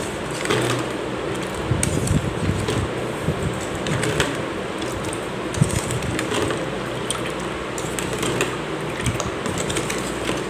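Plastic spoon stirring coconut milk in a plastic bowl to dissolve the added sugar, with light, irregular clicks and scrapes against the bowl. Underneath runs a steady fan-like whir.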